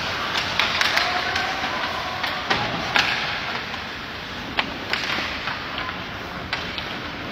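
Live ice hockey play: irregular sharp clacks of sticks and puck striking ice and boards over a steady rink noise of skates scraping.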